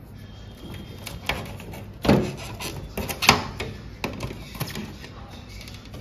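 A screwdriver backing out the screw that holds a split air conditioner's plastic display board, then the board being worked loose from its plastic front panel: a series of scrapes and clicks, the loudest about two and three seconds in.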